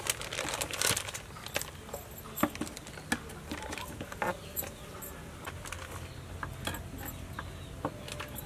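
Plastic food packaging crinkling for about the first second, then scattered light clicks and taps of food being handled.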